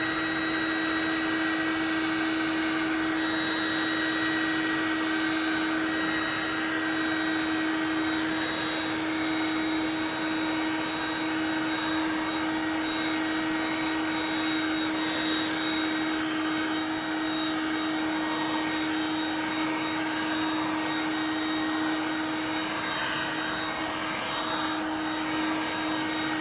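Vacuboy handheld vacuum cleaner running steadily as its floor nozzle sucks wood shavings off a coarse-fibre doormat. It makes a constant motor whine that holds one pitch, over an airy rush of suction.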